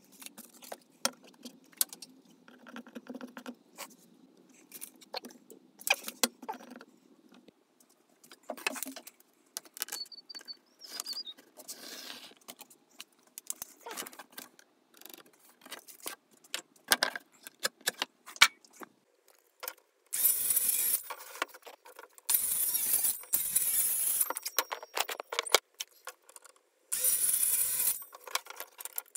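Clicks, taps and clatter of hand tools, a tape measure and a pencil being handled on a bench for about twenty seconds. Then four short loud bursts of a Milwaukee cordless circular saw cutting OSB board, each lasting one to two seconds with brief pauses between.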